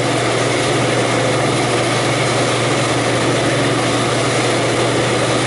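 Walk-in cooler evaporator fan running steadily: a constant rush of moving air over a low hum.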